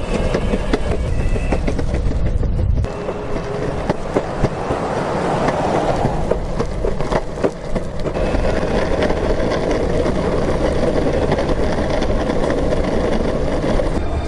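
Evolve electric skateboard rolling over pavement: a steady wheel rumble with scattered clicks.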